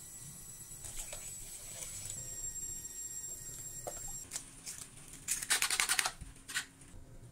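A silicone spatula stirring rice-flour batter in a glass bowl, then, in the second half, a fork rapidly beating an egg in a small bowl, clicking fast against its sides.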